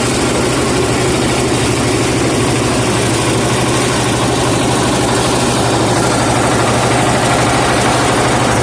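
A large engine idling steadily, with a low hum and a fast, even pulse.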